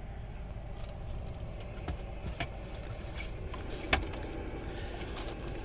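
Lexus LS 460 running at idle, a steady low hum, with a few light clicks from handling and one sharper click about four seconds in.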